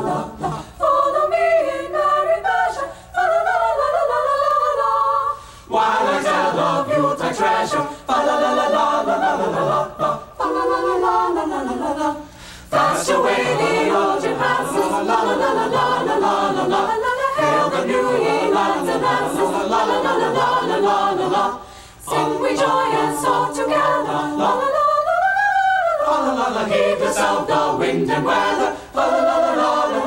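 Mixed choir of male and female voices singing a cappella, in sung phrases broken by a few short pauses.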